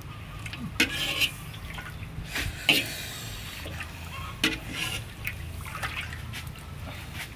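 Water sloshing and bubbling in a large metal wok while a knife blade stirs it, knocking sharply against the pan several times, the loudest about a third of the way in. Near the end water splashes and drips as the boiled snake is lifted out.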